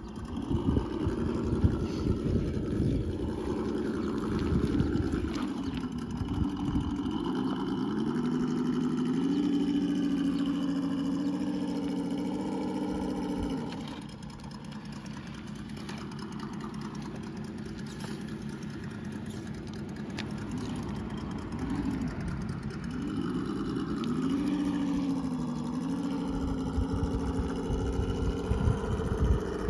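Small motor whirring, its pitch rising and falling; it drops out for several seconds partway through and then returns. Underneath runs a low rumble.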